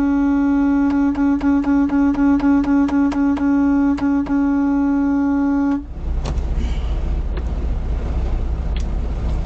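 Semi-truck horn held in one long steady blast that cuts off about six seconds in, followed by the low rumble of a truck engine running.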